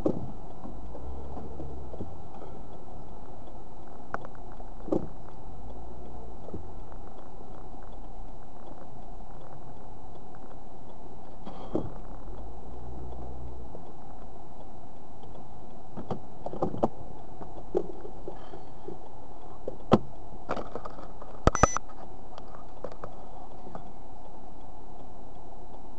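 Steady engine and road hum inside a car's cabin as it creeps along slowly, with scattered light clicks and knocks; the sharpest come near the end, one click followed shortly by a quick pair.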